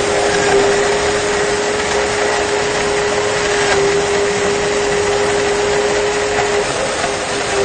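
Blendtec blender running steadily as it grinds a jarful of pens: a steady motor whine over a dense rushing grind of the pieces in the jar.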